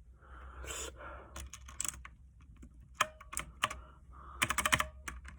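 Mechanical keyboard with clicky blue switches being typed on, its keys clicking: scattered presses at first, then a quick run of clicks near the end.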